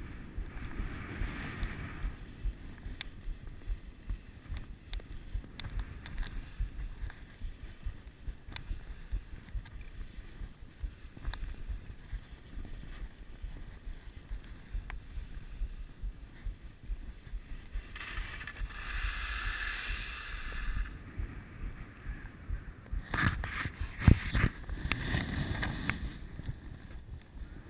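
Skis sliding and scraping over wind-crusted snow, with wind buffeting the helmet-camera's microphone as a low rumble. The scraping hiss swells in two longer stretches in the last third, and there is a single sharp knock a few seconds before the end.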